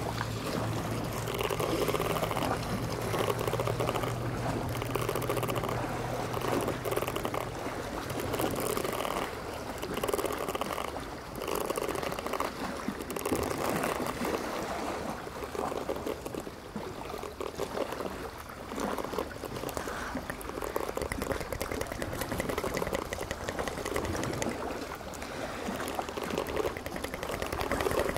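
Small sea waves lapping and splashing at the shore, a wash of water that swells and ebbs every second or two. A low steady hum runs under it for about the first eight seconds, then stops.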